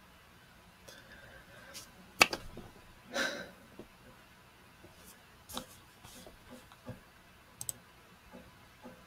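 Computer mouse clicks and small desk-handling noises: a sharp click about two seconds in is the loudest, then a brief rustle, then several lighter scattered clicks.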